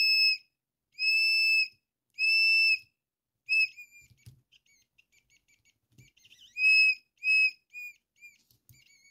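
Small electronic buzzer driven by a simple transistor circuit, sounding a high whistling tone in repeated beeps of about half a second each. Through the middle it breaks into faint, brief chirps, then gives three quicker beeps, each shorter than the last, near the end.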